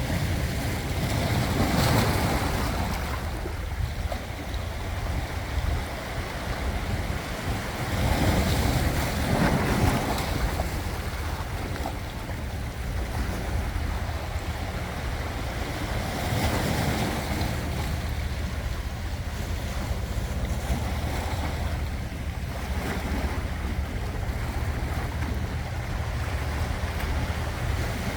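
Ocean waves breaking and washing in, swelling louder about every six to eight seconds over a steady low rumble.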